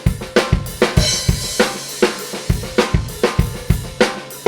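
Drum kit recorded with a single mono room microphone (a U47 into a 1073 preamp), played back through the Acme Audio Opticom XLA-3 compressor plugin blended at about 50% wet. Kick, snare and hi-hat play a steady beat, with a cymbal ringing in about a second in.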